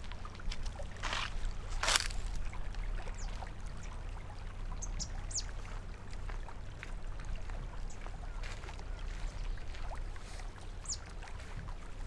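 Outdoor walking ambience: a steady low rumble throughout, with a couple of sharp footfall-like knocks about one and two seconds in and a few short, high chirps scattered through the rest.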